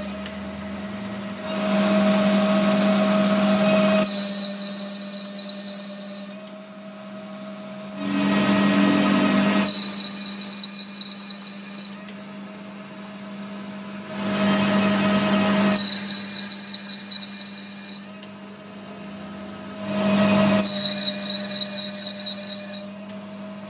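Metal lathe cutting an internal thread in a steel gear, with the spindle humming steadily. Four cutting passes come about six seconds apart, each a loud stretch of cutting noise followed by a high-pitched whine that cuts off abruptly.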